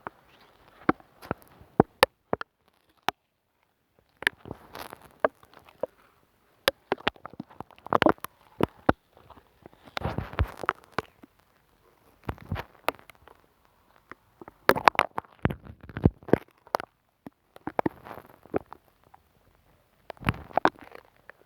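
Glue stick rubbed and dabbed directly on a microphone, giving close, sticky crackles and sharp clicks in irregular bursts separated by short pauses.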